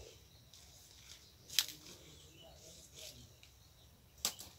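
Kale leaves snapped off by hand: two sharp snaps, one about a second and a half in and a doubled one near the end, over a quiet rural background with faint distant voices.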